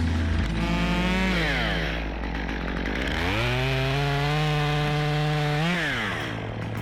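Two-stroke chainsaw engine being throttled. It winds down from speed early on, revs up again about three seconds in, holds at full speed for a couple of seconds, then drops back toward idle near the end.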